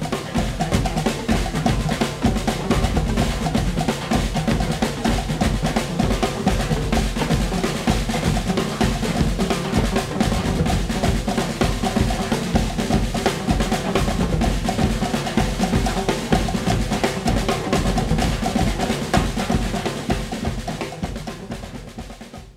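Marching band playing, led by a busy snare and bass drum beat with steady sustained notes underneath; the music fades out near the end.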